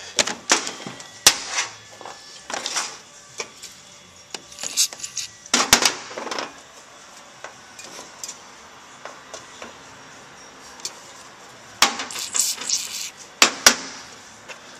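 A hand tool clinking and scraping against the metal frame and mechanism of a BMW E34 seat. There is an uneven run of sharp clicks and knocks, with a longer rustling scrape about halfway through and another near the end.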